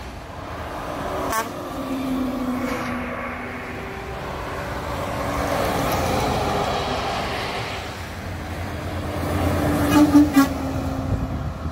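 Heavy trucks passing on a highway, with engine and tyre noise swelling and fading and a brief low horn tone about two seconds in. Near the end a Kenworth T270 passes and its Hadley H00293AS air horn gives a few short loud blasts.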